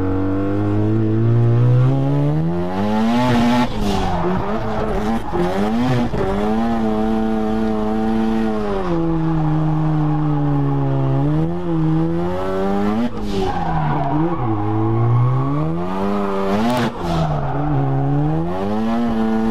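Turbocharged 13B rotary engine of a Mazda RX-7 FC3S revving through a drift run, heard from inside the cabin, with tyres squealing. The engine pitch climbs over the first few seconds, holds high, then falls and rises several times. It pulls without cutting out on a low fuel tank, so no fuel slosh on this run.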